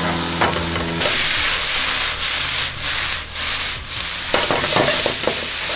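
Sliced vegetables sizzling in a hot wok while a metal spatula scrapes and stirs them and the wok is tossed. The sizzle grows louder about a second in and dips briefly a few times as the wok is tossed.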